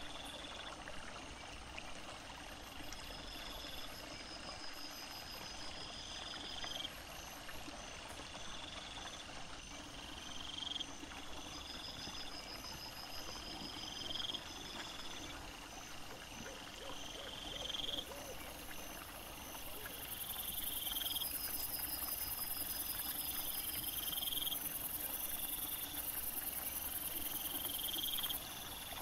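Night insects calling: short rising chirps repeat about every second and a half throughout, with fainter rapid pulsing above them, and a steady high-pitched buzz joins in for the last third.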